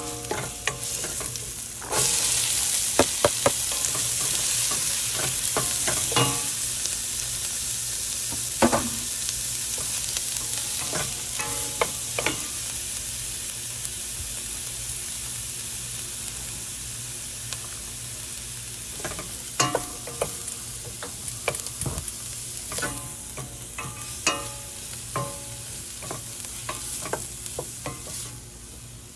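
Food sizzling in a hot pan while a utensil stirs it, with repeated clinks and scrapes against the pan. The sizzle jumps louder about two seconds in, then slowly dies down.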